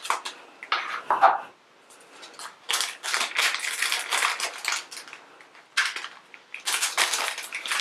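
Plastic blind-bag wrapper crinkling as it is handled and pulled open by hand, in irregular spells of crackling. The spells briefly lull around two seconds in, then pick up strongly from about three seconds and again near six seconds.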